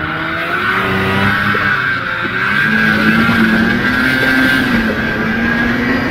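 Old Ski-Doo snowmobile's two-stroke engine running under load through deep powder. Its pitch climbs about two and a half seconds in and then wavers up and down.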